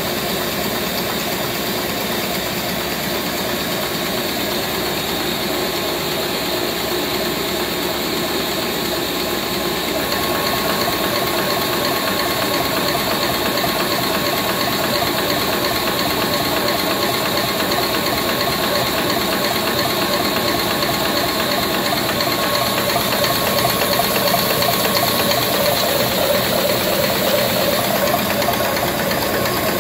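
Bertoli HA33037 high-pressure homogenizer running, its reciprocating piston pump and valves making a rapid, steady mechanical clatter. It gets a little louder about ten seconds in, when a faint steady tone joins that fades out before the end.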